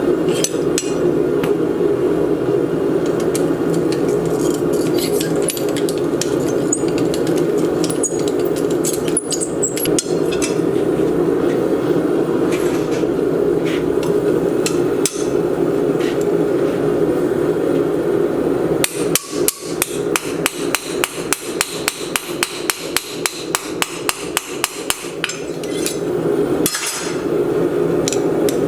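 Small cross-pein hammer setting a steel pin in a hand-forged hinge: quick, light, even blows, about four a second, starting about two-thirds of the way in. Before that, a steady rushing noise with scattered metal taps.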